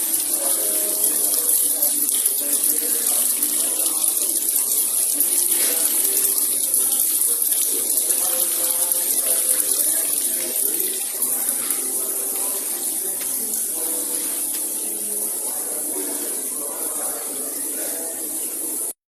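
Water rushing and splashing past a moving boat in a steady, loud hiss, cutting off suddenly near the end.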